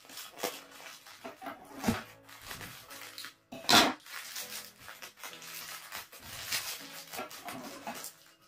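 Plastic courier mailer crinkling and rustling as it is handled and its shipping label is picked at and peeled, in irregular crackles with one sharper, louder noise a little under four seconds in.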